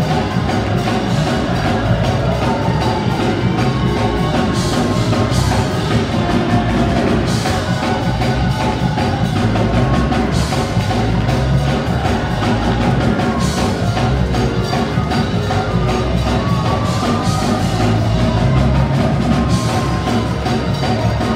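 Loud, up-tempo church music with heavy percussion and repeated strikes, played by the band for a praise break.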